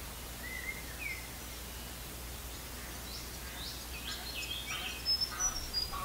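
Water birds calling over a steady hiss: two short sliding calls in the first second, then a busier run of short high calls from about three seconds in.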